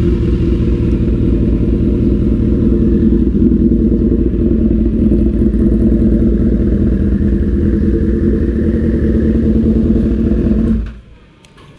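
Honda CBR1000RR inline-four engine idling steadily through an aftermarket SC-Project exhaust, then switched off near the end, the sound cutting out suddenly.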